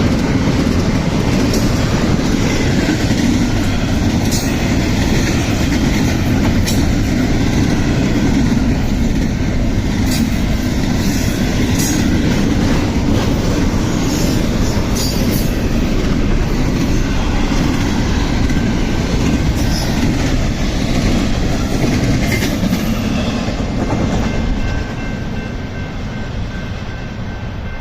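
CSX intermodal freight train's cars rolling past: a steady loud rumble of wheels on rail, with scattered clicks and brief wheel squeals, easing off about 25 seconds in.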